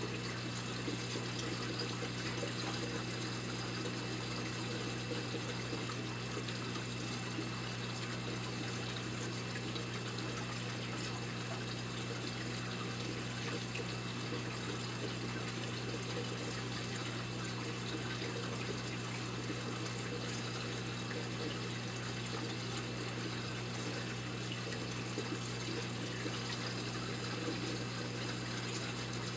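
Saltwater aquarium's circulating water trickling steadily, with a steady low hum from the tank's pump equipment.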